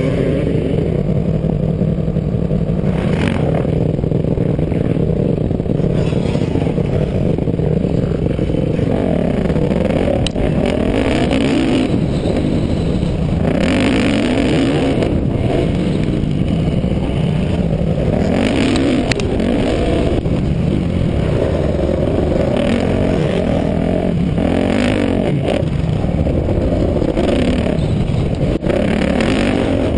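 Motocross dirt bike engine under way, revving up and falling back again and again as the rider works the throttle around the track, heard through a helmet-mounted camera with heavy wind noise on the microphone. A few sharp clicks cut in, about ten seconds in and again near the middle.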